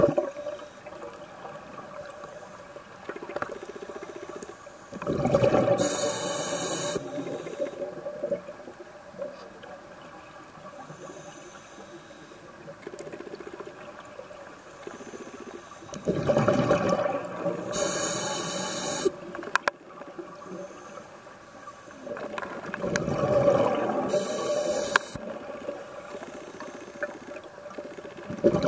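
Scuba diver breathing underwater through a regulator: loud surges of bubbling and hissing come and go, three full breaths with a fourth starting at the end, over a quieter underwater background.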